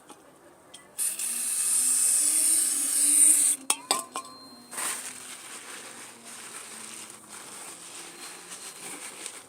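Aerosol brake cleaner spraying onto a brake caliper slider pin: one hissing burst of about two and a half seconds. Then a few sharp clicks and a light metallic clink as the can and pin are handled.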